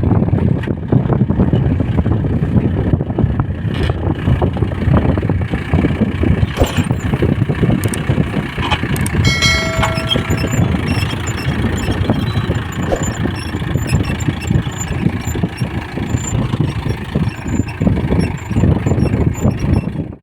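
Mahindra Yuvo 415 DI tractor's four-cylinder diesel engine running under load as it pulls a reversible plough through hard soil. A short high tone sounds about halfway through.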